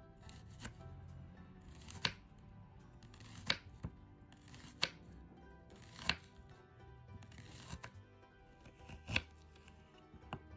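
Kitchen knife slicing a small onion into rounds on a wooden cutting board, each cut ending in a sharp tap of the blade on the wood, about every second or so; near the end the knife starts on a piece of ginger. Soft background music underneath.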